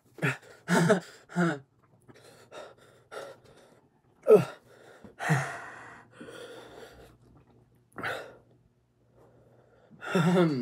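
A man gasping, breathing hard and letting out short voiced cries through the burn of a just-eaten ghost pepper, in separate bursts with gaps between them. About five seconds in comes a longer breathy exhale through an open mouth.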